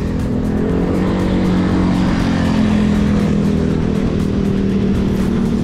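Wind buffeting the microphone of a bike-mounted camera while riding, under a steady low drone that wavers slightly in pitch.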